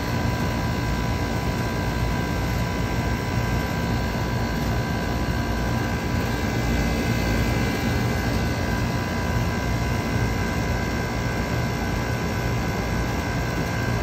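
Old Carrier R-22 rooftop package air-conditioning unit running with its side panels off: the compressor and condenser fan give a steady rushing hum with a few constant high tones over it. The system is running and cooling, freshly recharged.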